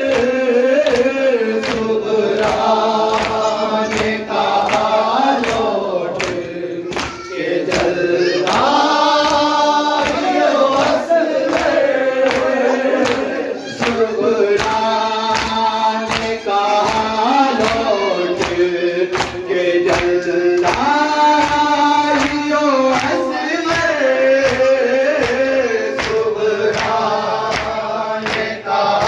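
A group of men chanting a noha, a Shia lament, in unison behind a lead reciter on a microphone. The chant is cut by sharp rhythmic slaps about twice a second, typical of matam chest-beating keeping time.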